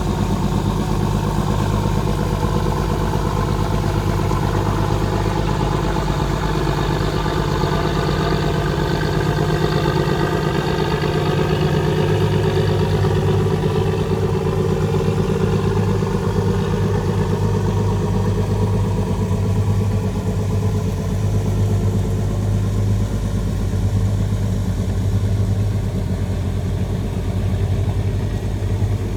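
Fishing boat engine running steadily with a low, even hum. A fainter second engine note rises and falls in pitch partway through.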